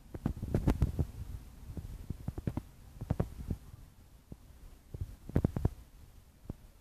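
Irregular low rumbling thumps on the microphone, bunched into three short clusters a couple of seconds apart.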